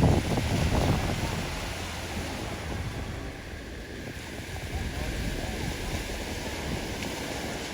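Surf washing onto a shallow sandy beach, with wind gusting on the microphone, strongest in the first second.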